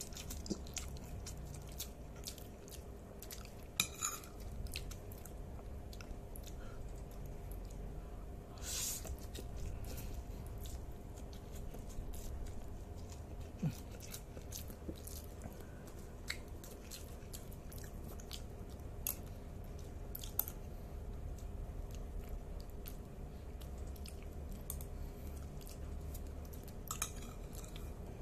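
A person chewing a mouthful of sauced instant noodles close to the microphone, with scattered sharp clicks of a metal spoon against the plate, over a low steady hum.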